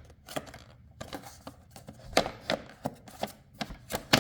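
Irregular plastic clicks and knocks as the ride-on toy's plastic battery cover is lifted and worked loose by hand.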